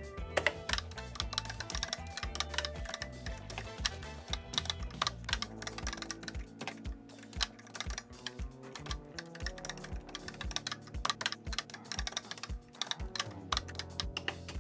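Keys of a Commodore SuperPET keyboard clacking in quick runs of keystrokes as lines of text are typed. Quiet background music with a low bass line runs under it.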